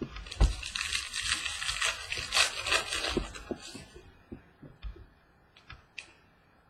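A foil trading-card pack wrapper being torn open and crinkled for about three and a half seconds, then a few light taps as the cards are handled.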